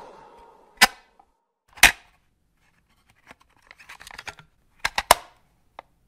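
A last fading tail of music, then a handful of sharp clicks and knocks with silence between: two single ones about a second apart, a quick scatter of small ticks near the middle, and a couple more near the end.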